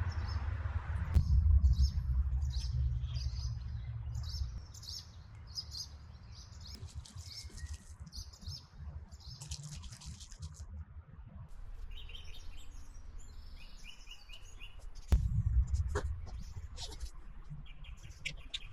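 Small birds chirping and singing over and over in the background, with a low rumbling noise that is heaviest for the first few seconds and again briefly about fifteen seconds in.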